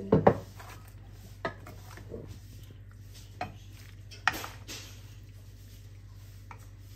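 Kitchen utensils clinking and knocking against pots and dishes: two loud clinks right at the start, then single clinks spaced a second or two apart, one followed by a short scrape, over a low steady hum.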